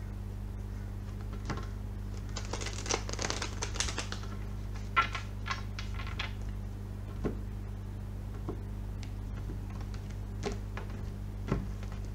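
A deck of tarot cards being hand-shuffled: a quick flurry of soft card flicks and clicks, then a few single taps of the cards, over a steady low hum.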